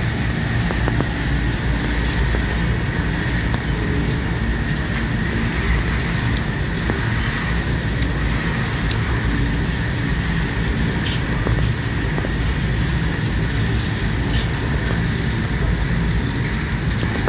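Goods train of covered box wagons rolling past: a steady rumble of steel wheels on the rails, with a thin high tone running through it and a few sharp clicks.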